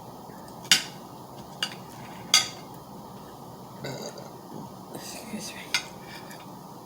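Cutlery clinking sharply on dishware four times, with softer eating sounds in between.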